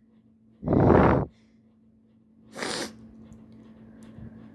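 A person's heavy breathing during a sneeze build-up. One loud breath lasts under a second starting about half a second in, then a short, sharp sniff comes near three seconds in.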